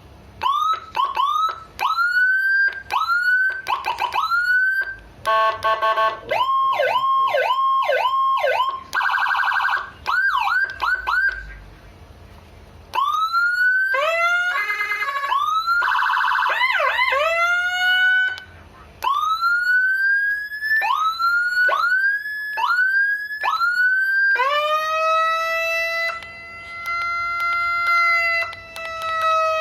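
Electronic emergency-vehicle siren, a Basick CJB-610B/PA3800 siren set worked from a Whelen HHS3200 remote handle, stepping through its tones. First come quick rising whoops about twice a second, then fast warbling and pulsing tones, then slower rising sweeps of about a second each, then a long held tone that sags slightly, and finally a rapid yelp near the end. Short breaks separate the patterns.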